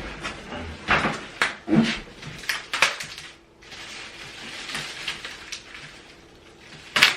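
Handling noise from a newly unboxed mini refrigerator and its packaging: a series of knocks and clicks with rustling in between, and one louder knock near the end.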